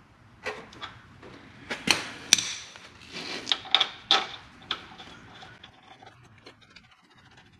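Work on a motorcycle's front fork: a run of sharp knocks and clicks, the loudest about two seconds in, with a stretch of scraping between three and four seconds. The sounds then grow fainter.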